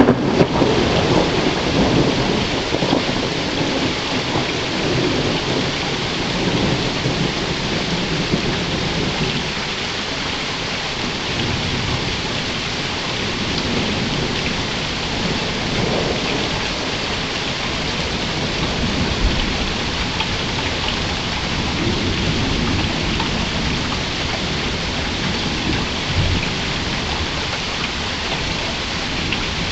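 Steady rain falling, with a low rumble of thunder dying away over the first few seconds.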